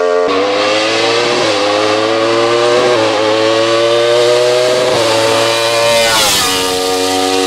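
Wolf Thunder GB08 hillclimb prototype accelerating hard uphill. Its engine climbs in pitch through the gears, with a quick upshift roughly every one and a half seconds. Its pitch falls away about six seconds in as it passes close by.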